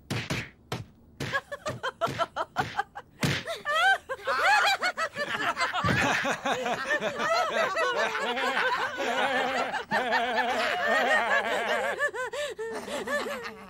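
A cartoon character's voice laughing hard in a long, unbroken fit of repeated 'ha-ha' laughs, starting a few seconds in. Before it there are a few short sharp knocks and clicks.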